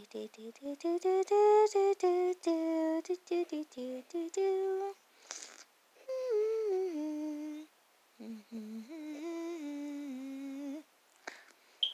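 A woman humming a slow wordless tune in long held notes, pausing for a breath about five seconds in before a phrase that steps down in pitch.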